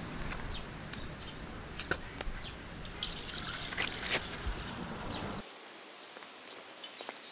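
Milk being poured in a thin trickle into a steel bowl, a steady liquid hiss with small splashes. The pouring sound stops about five and a half seconds in, leaving a quieter background.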